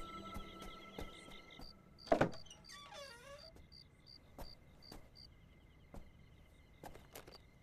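Crickets chirping in an even train of short high chirps, about three a second. About two seconds in, a wooden door thuds and then creaks open with a wavering, falling creak.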